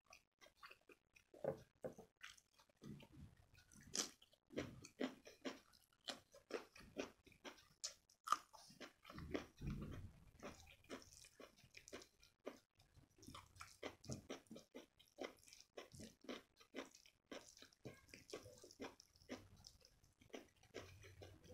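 Soft chewing and mouth sounds of a person eating rice with palak paneer by hand: many short, irregular wet smacks and clicks, with the fingers squishing the rice and spinach curry on the plate.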